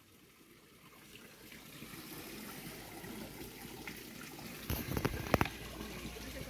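Pond water trickling and lapping as a crowd of carp jostle and gulp at the surface, with a quick cluster of louder splashes about five seconds in.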